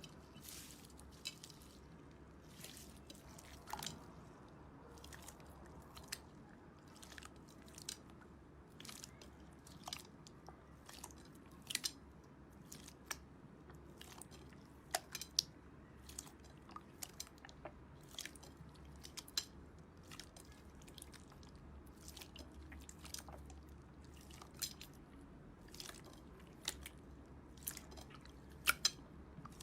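Slime being worked by hand, giving irregular sharp crackles and clicks, a few a second, over a faint low hum.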